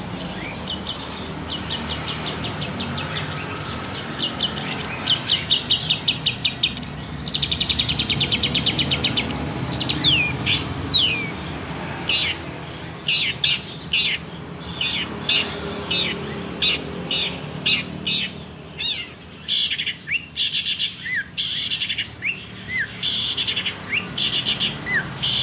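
Long-tailed shrike (cendet) singing a varied song: fast rattling trills in the first half, then a string of short, sharp slurred whistles and chips.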